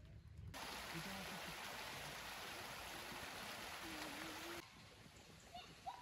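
Rushing stream water, a steady hiss that starts abruptly about half a second in and cuts off suddenly after about four seconds. A faint voice sounds underneath, and a voice is heard again near the end.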